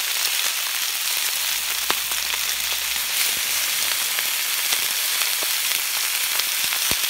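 Marinated spatchcocked quails sizzling skin-side down on a hot plancha as they brown: a steady frying hiss with scattered sharp pops and crackles.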